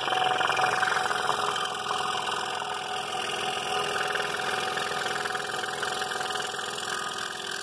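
Scroll saw running steadily, its reciprocating blade cutting a thin wooden workpiece toward the point of a V-shaped pattern line. The sound gets quieter near the end.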